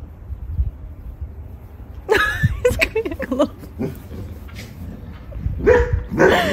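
Huskies vocalizing in play: two bouts of wavering, pitch-gliding calls, the first about two seconds in and the second near the end.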